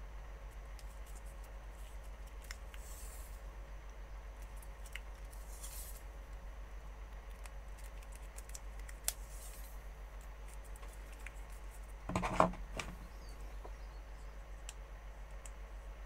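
Insulation tape being pulled off the roll and wrapped around small micro-switch pins: faint handling clicks and short rasping pulls of tape, then a louder crackling tear about twelve seconds in. A steady low hum runs underneath.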